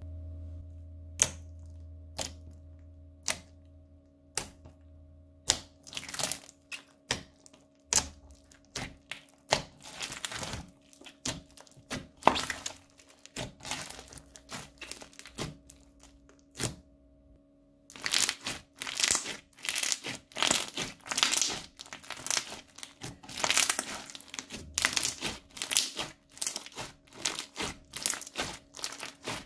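Thick crunchy slime studded with small beads being squeezed and kneaded by hand, giving sharp cracks and pops. These start as single clicks about a second apart, then turn into rapid crackling in bursts, densest in the last dozen seconds.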